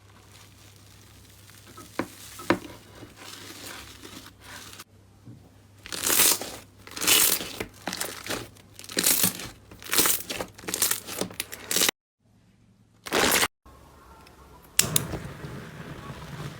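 Slime being squeezed and pressed by hand, crackling and crinkling in a run of loud squishes, with abrupt silent cuts between clips near the end.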